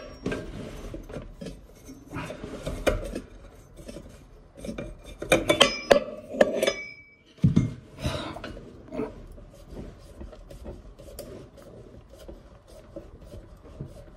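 A box spanner scraping and clinking against a ceramic basin and its waste fitting as it is tried on the waste backnut, which it does not fit. A burst of sharp metallic clinks comes about five to seven seconds in, with a dull knock just after. Then quieter rubbing and scraping follows as hands work the nut.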